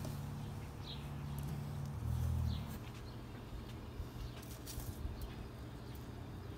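Outdoor ambience with a steady low rumble, two faint bird chirps about a second in, and a few light clicks later on as jalapeño peppers are moved about on the grill's metal grate.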